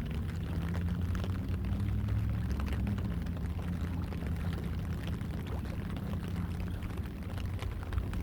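A low, steady engine drone whose pitch drifts slightly, over splashing water.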